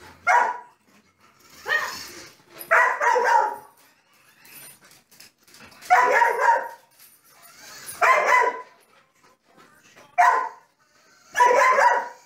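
A dog barking in play at a toy, about seven short barks at uneven intervals.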